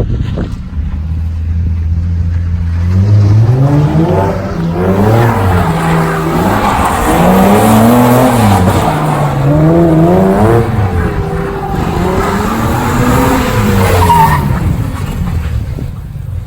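Drift car engine idling, then from about three seconds in revving up and down again and again with tires skidding, as in a drift.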